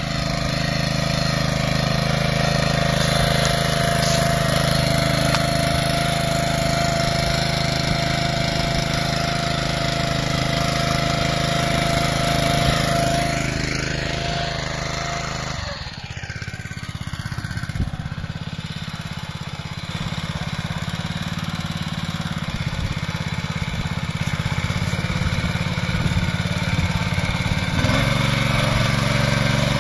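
Benassi BL105 walk-behind tiller's engine running steadily. About halfway through, its note sweeps and shifts, then it carries on running at a steady, changed tone.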